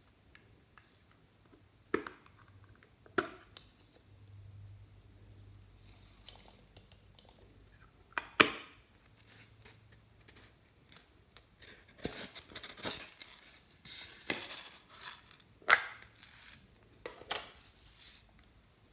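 Plastic toy containers handled over a glass dish, with a few sharp plastic clicks and knocks. Over the last several seconds comes a run of crackly rattling as sprinkles, glitter and small plastic bits are shaken out of a small plastic container onto slime.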